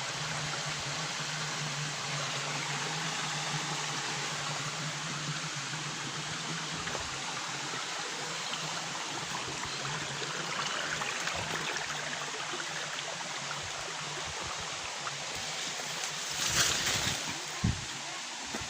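Waterfall rushing steadily, an even wash of falling water. Near the end there is a brief louder rush of noise followed by a single thump.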